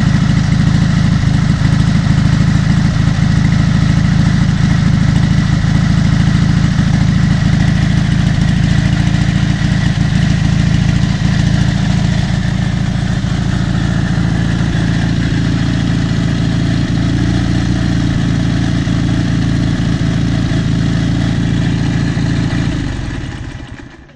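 Dnepr MT-11's flat-twin (boxer) engine idling steadily on its test run after an electronic ignition repair, carburettors not yet adjusted. It is switched off near the end, the sound dying away over about a second.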